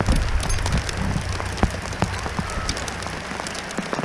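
Rain falling on the kayak and the lake: an even hiss with many scattered sharp drop hits, over a low rumble.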